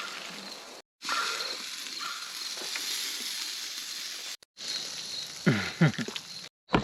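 Cheese-filled sausages sizzling as they fry, a steady hiss that cuts off briefly about a second in and again past four seconds.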